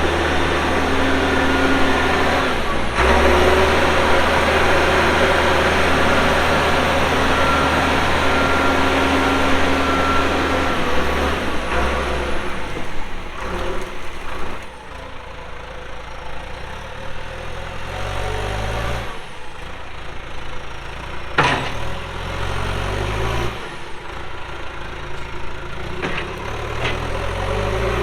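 Backhoe's diesel engine running steadily, then changing pitch and settling a little quieter partway through as the machine works its way across a muddy field. A single sharp click comes about two-thirds of the way in.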